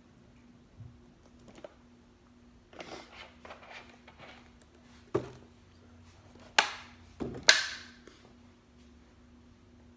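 A run of knocks and clatters from objects being handled, ending in two sharp, loud knocks, over a steady low hum.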